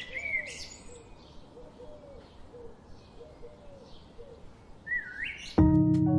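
Birds calling: a swooping chirp at the start and another near the end, over faint, softly repeated lower calls. Near the end, loud keyboard music cuts in suddenly.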